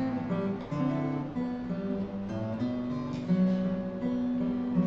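Acoustic guitar strummed and picked, letting chords ring as the song's closing instrumental bars play out.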